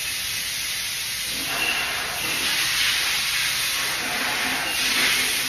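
Steady hissing noise that swells a little about two seconds in and again near the end.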